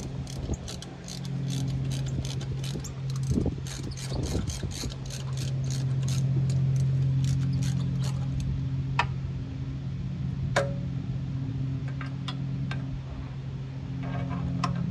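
Ratchet wrench clicking quickly as a bolt is turned out, then slowing to a few single clicks about a second or two apart. A steady low hum runs underneath.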